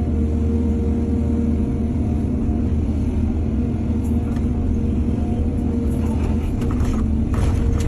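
Excavator's diesel engine running steadily with a low rumble, with a few brief rasping noises from about four seconds in and near the end.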